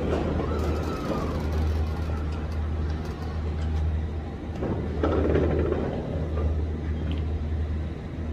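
Large diesel truck idling with a steady low hum. There are a couple of louder noisy swells near the start and about five seconds in.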